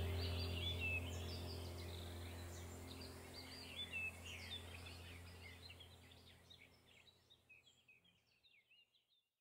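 A background soundtrack of a steady low drone with birds chirping over it, fading out to silence near the end.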